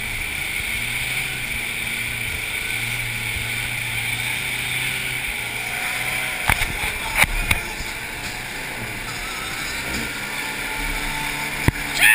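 Pickup truck engine running steadily as the truck crawls along a muddy rut, with a few sharp knocks a little past halfway.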